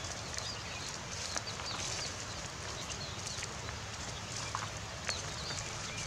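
Small munias (bondol) giving short, high chirps, many scattered calls, with footsteps crunching on dry rice straw and stubble.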